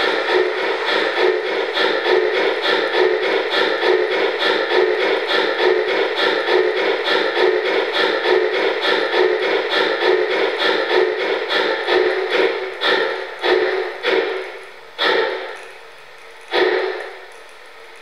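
Märklin gauge 1 BR 44 model locomotive's sound decoder playing rapid, even steam-engine chuffing through its loudspeaker. About twelve seconds in, the chuffs slow to a few single, widely spaced exhaust beats and stop as the locomotive comes to a halt, leaving a faint steady hiss.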